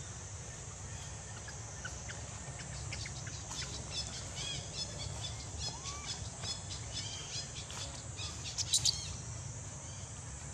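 A quick run of short, high-pitched animal chirps and squeaks, with a louder cluster near the end, over a steady high hiss.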